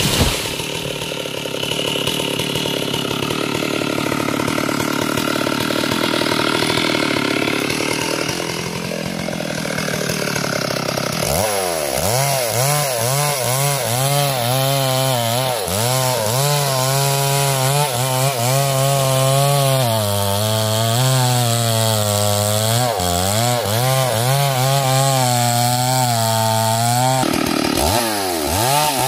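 Stihl MS 382 two-stroke chainsaw running at high revs while cutting wood. About eleven seconds in, the engine note turns clearer and its pitch swings up and down as the throttle and the load change.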